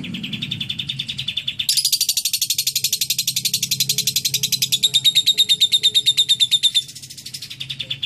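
Fischer's lovebird giving a long, rapid chattering trill (ngekek) of sharp notes at about ten a second, carrying its learned cililin song. The notes jump higher and louder about two seconds in, then drop to a weaker series near the end.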